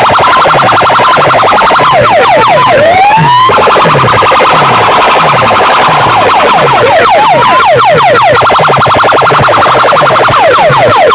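Siren-style electronic effects blasting through a large stack of horn loudspeakers, very loud. Fast falling sweeps, about five a second, take turns with stretches of a rapidly pulsing steady tone, and a rising whoop cuts in about three seconds in and again about seven seconds in.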